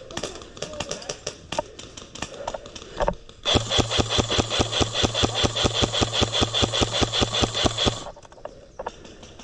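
Airsoft electric gun firing one long full-auto burst of about four and a half seconds, starting about three and a half seconds in: a rapid, even stream of shots over the steady whine of its gearbox motor, cutting off abruptly. Scattered single cracks of gunfire come before it.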